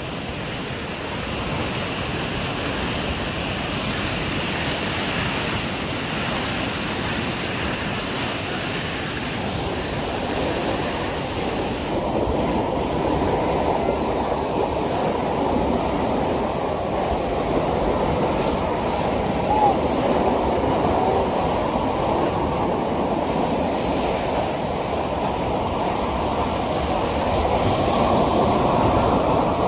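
Floodwater rushing in a steady, continuous wash of noise; its sound changes abruptly about twelve seconds in.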